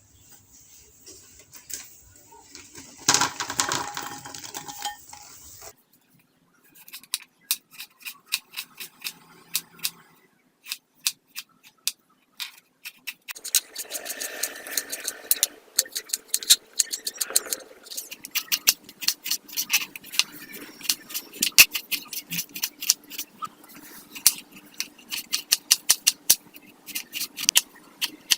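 Kitchen utensils clattering: a run of short, sharp knocks and clicks, sparse at first and then faster and more regular, about two or three a second, through the second half.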